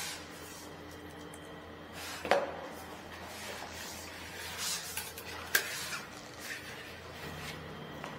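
Handling noise with a few sharp metal clinks and knocks, the loudest about two seconds in and another a few seconds later, as a metal-bladed paint shield is set down on the floor.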